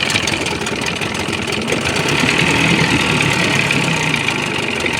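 1980 Johnson 25 hp two-stroke outboard running at low throttle in reverse. Its steady running gets a little louder a couple of seconds in.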